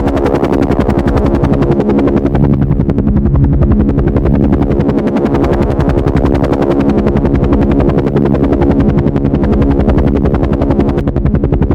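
Helicopter running steadily and loud, its rotor blades chopping in a fast, even rhythm over a steady engine hum.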